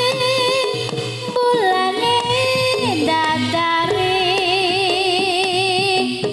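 Live jaranan gamelan music. A high melody line holds long notes that glide and waver, over steady drumming and a repeating low gong-chime note.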